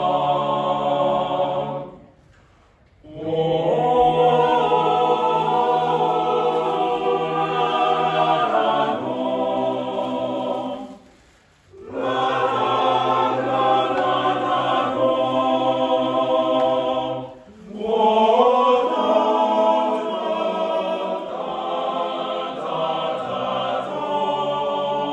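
An unaccompanied boys' choir of teenage voices singing in parts, held chords in phrases broken by three short pauses.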